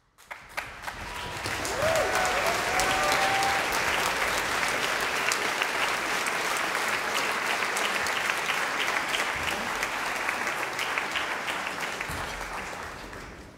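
Concert-hall audience applauding: the clapping swells within the first two seconds, holds steady, and dies away near the end.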